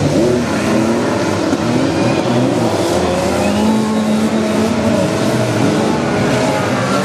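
A pack of fun car race cars running together on a dirt track, several engines revving at once, their pitches rising and falling over one another as the cars accelerate and lift through the bend.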